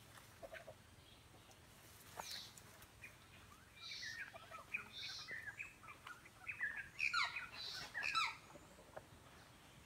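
Birds chirping: a run of short, quick calls, busiest and loudest from about four to eight seconds in.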